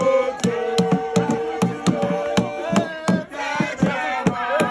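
Voices singing long, wavering notes over an uneven rhythm of sharp knocks, with a brief break about three seconds in.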